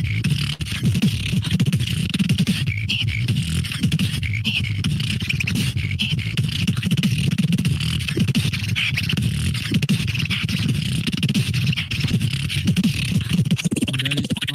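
Beatboxing heard over a Discord voice call: a continuous, dense stream of sounds with no pauses, deep bass under a high buzzy hiss.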